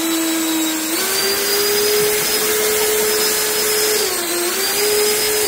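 Electric ducted fan running hard: a loud rushing whine whose pitch steps up about a second in, dips briefly a little after four seconds, then starts to fall away at the end as the fan slows.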